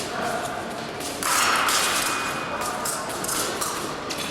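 Fencing hall din: thuds and sharp clicks, fitting footwork on the piste and épée blades meeting, over a murmur of voices. A louder stretch of sound begins about a second in and lasts about two seconds.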